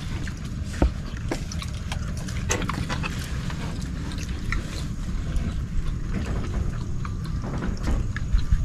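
Hand-eating of shellfish and rice: wet slurping and chewing, with scattered light clicks of clam shells, over a steady low rumble.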